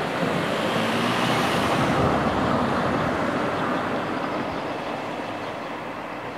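Freight train of loaded double-deck car-carrier wagons rolling along the track with a steady rumble that swells about two seconds in, then slowly fades as the train moves away.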